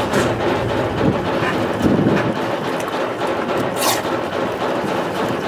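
Steady noise of a dive boat and the water sloshing around its stern as divers come up the ladder, with one brief sharp splash about four seconds in.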